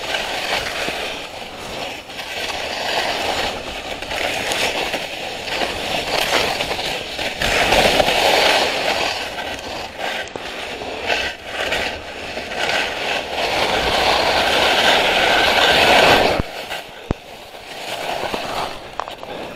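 Skis hissing and scraping over snow as the skier turns downhill, the noise swelling and fading with each turn. It drops off sharply about three quarters of the way in as the skier slows.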